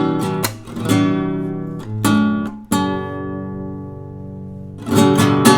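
Valencia VC 204 HT nylon-string classical guitar played solo. Several strummed chords come first, then one chord is left ringing and dying away for about two seconds, and a few more strums come near the end.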